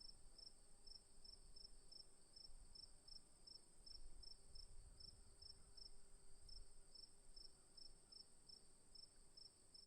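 Crickets chirping: a steady high-pitched trill, with a second cricket's chirps pulsing evenly about three times a second. Faint, over a low background rumble.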